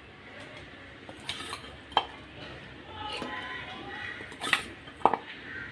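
A metal spoon clinking and scraping against bowls while sauce-coated fried pakodas are spooned from a steel bowl into a ceramic serving bowl. There are a few sharp knocks at irregular intervals.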